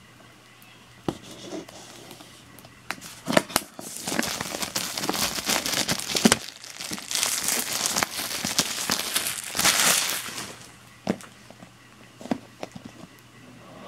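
Clear plastic shrink wrap being torn and crumpled off an iPad box: a loud crinkling rustle lasting several seconds in the middle. Scattered light clicks and knocks from the box being handled come before and after it.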